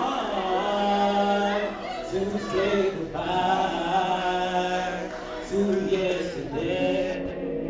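A solo voice singing unaccompanied into a microphone, with held and sliding notes.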